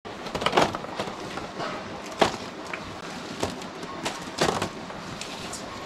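Ripe areca nuts pulled off their bunches by hand and tossed onto a heap of nuts on a hard floor and into a woven basket: irregular sharp knocks as they land, a few of them clearly louder than the rest.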